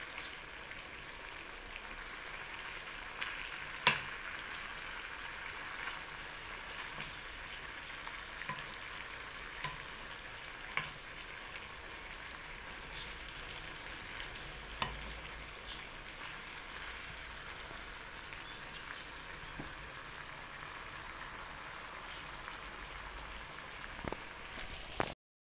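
Chicken pieces and beef loaf slices frying in a pan with a steady sizzle, while a wooden spatula stirs them, knocking and scraping against the pan now and then, loudest about four seconds in. The sound cuts off suddenly near the end.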